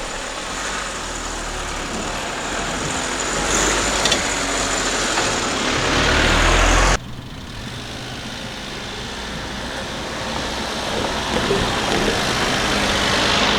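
Road vehicles passing, engine and tyre noise. The first grows louder and cuts off suddenly about halfway through, then a second vehicle builds up in the same way toward the end.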